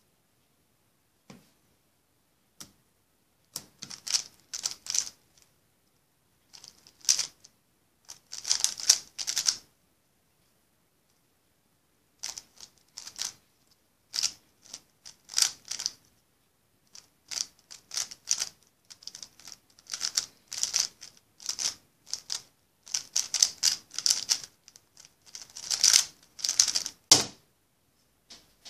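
A 3x3 speedcube being turned fast during a solve: bursts of rapid plastic clacking broken by short pauses, with a sharper knock near the end.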